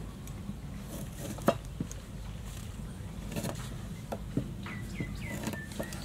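Kitchen knife cutting through limes and knocking on a round wooden chopping board: a few sharp knocks, the loudest about one and a half seconds in. Birds chirp near the end over a steady low hum.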